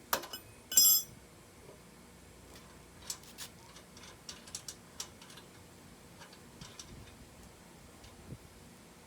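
Wrench and metal parts clinking while a 15 mm axle bolt is loosened: one loud ringing metal clank about a second in, then scattered light clicks and ticks.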